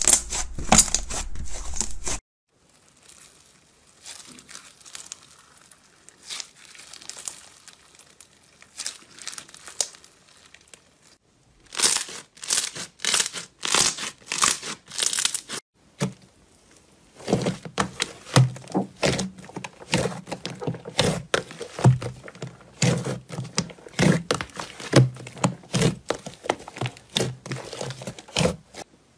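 Slime being squeezed and kneaded by hand: a run of sharp crackles, clicks and pops. It is faint for several seconds after the start, then loud again, and deeper squelching pops come in over the last ten seconds as a large glossy slime is pressed.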